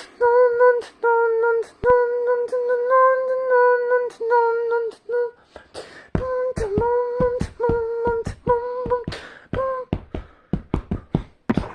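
Instrumental song intro: one pitched note repeated in short choppy phrases, with sharp percussive clicks. From about six seconds in, deeper drum-like hits join in.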